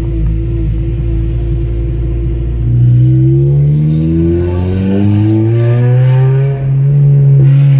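A 2006 Toyota Corolla XRS's 2ZZ-GE four-cylinder engine running loud with its exhaust cutout open: a steady low note at first, then from about three seconds in the engine note climbs steadily as it revs up. Near the end it dips briefly and then holds at a higher, louder note.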